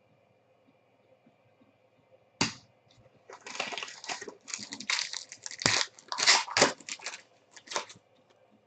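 A sharp click, then a trading-card pack's wrapper being torn open and crinkled in many quick crackling bursts for about five seconds.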